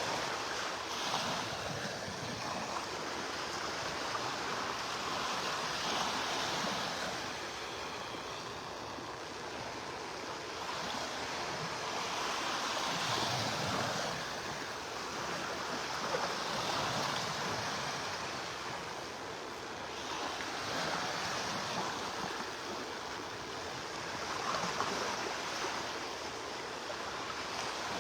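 Surf washing onto a beach: a steady hiss of water that swells and eases every few seconds as small waves break.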